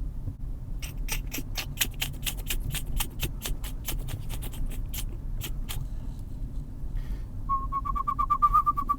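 Low car-cabin rumble under a quick run of sharp clicks, about five a second, for several seconds. Near the end a man starts whistling a wavering, trilled note.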